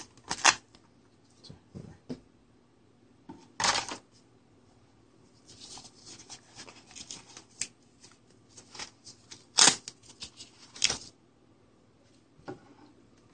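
Handling noise from a clamp meter, its nylon holster and its plastic clamshell packaging: scattered rustles, scrapes and clicks, with a longer rasp about three and a half seconds in and two sharper clicks near the end.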